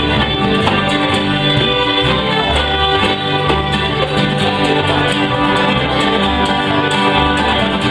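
Live family bluegrass string band playing an instrumental tune: several fiddles carry the melody over strummed guitar and banjo, with a steady low bass line underneath.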